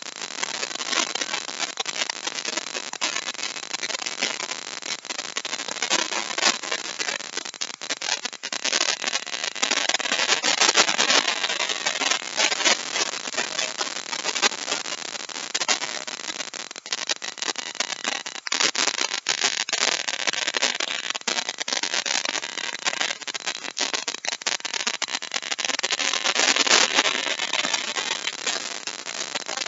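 Compact wood router running and cutting a deep mortise: a steady, dense cutting noise with a crackle of chips, dipping briefly a few times.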